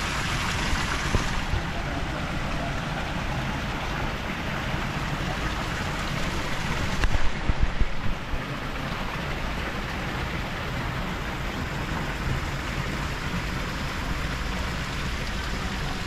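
Garden fountain spouts pouring thin streams of water into a pond, making a steady splashing patter. A brief cluster of louder low thumps about seven seconds in.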